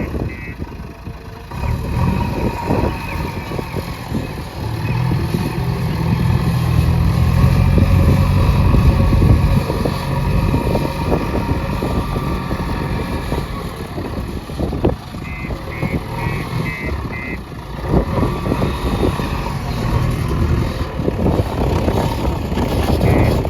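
JCB 3DX backhoe loader's diesel engine running, working harder and louder for several seconds after the first few, with scattered knocks and clanks. Its reversing alarm sounds a quick series of beeps near the start, again past the middle, and at the end.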